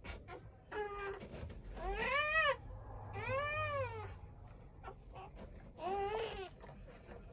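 Newborn Doberman puppies crying: four thin, high-pitched cries, each rising and then falling in pitch.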